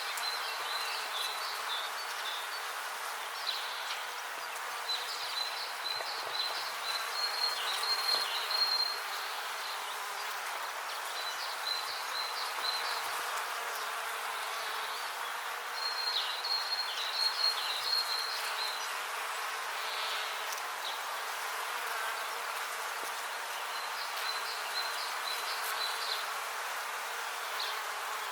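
Bees buzzing in a steady hum, with short bursts of high chirping every few seconds.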